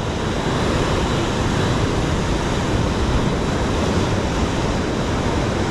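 Ocean surf washing over rocks, with steady wind buffeting the microphone.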